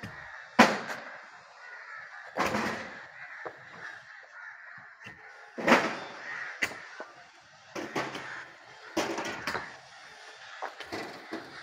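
Crows cawing again and again, a call every second or so. A sharper bang about half a second in is the loudest sound.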